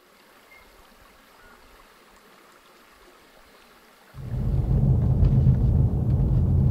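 Faint hiss, then about four seconds in a vehicle's road and engine rumble cuts in suddenly, loud, steady and deep.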